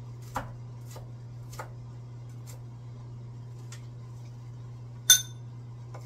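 Knife chopping red onion on a wooden cutting board in a few scattered taps, then one loud, ringing metallic clink about five seconds in, over a steady low hum.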